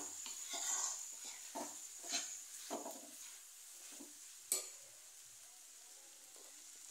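Metal spoon stirring and scraping sauced fusilli pasta around a metal kadhai, with a light sizzle underneath. A sharp clink of the spoon on the pan comes about four and a half seconds in, after which the strokes stop and only the faint sizzle goes on.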